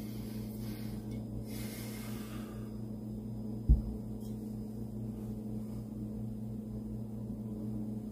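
Steady low electrical hum, with one dull thump a little under four seconds in.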